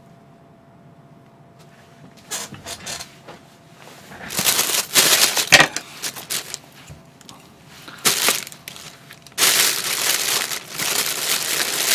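Thin plastic carrier bag rustling and crinkling as it is handled, in several loud bursts starting about two seconds in, then more continuously in the last few seconds.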